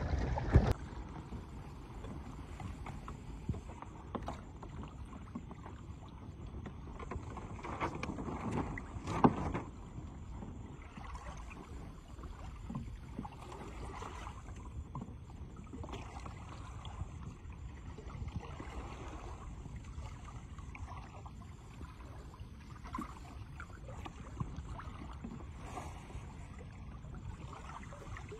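Small sailing boat under way on choppy water: steady wind and water noise against the hull, with a few knocks, the loudest about nine seconds in.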